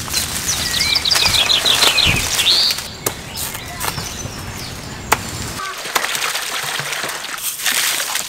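Birds singing, with a few sharp chops of a large knife cutting into a banana plant's stalk. Near the end, water splashing in a metal basin.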